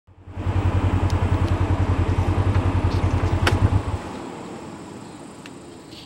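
An engine idling with a fast, even pulse, stopping abruptly about four seconds in; a single sharp click just before it stops.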